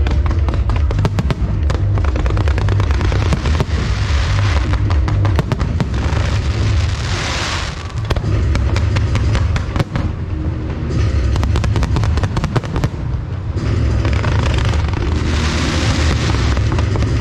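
Fireworks display going off continuously: rapid crackling and popping over deep booms, with two long sizzling, crackling flurries, one about seven seconds in and one near the end.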